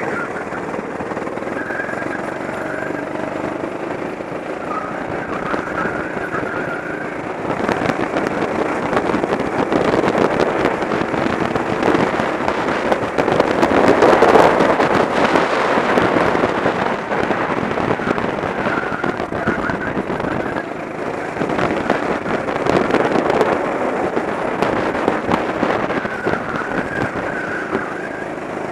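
Go-kart engine running hard at racing speed, heard from onboard with heavy crackling wind buffeting on the camera microphone. It gets louder through the middle as the kart runs flat out down a straight, then eases off and rises again for the next corners.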